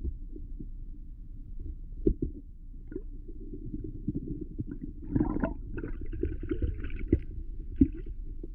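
Shallow creek water heard underwater through a camera housing: a steady low rumble with scattered sharp knocks and clicks. A higher fizzing gurgle comes in about five seconds in and lasts about two seconds.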